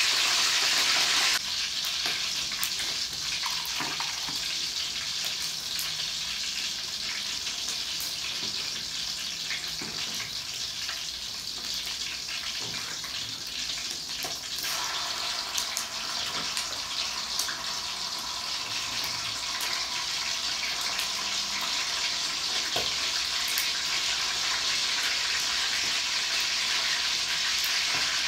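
Chicken pieces sizzling in oil in a frying pan, a steady hiss with scattered small crackles. A louder sound cuts off about a second in.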